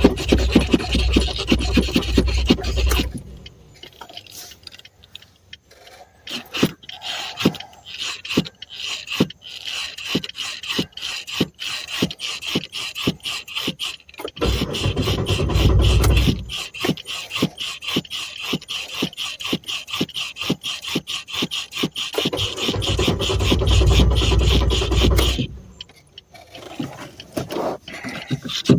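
Car engine cranking on its starter in long stretches without starting, a fast rhythmic chugging over a steady whine. The cranking drops away briefly twice and has deeper, louder spells. The engine does not fire because the tank has run out of gas.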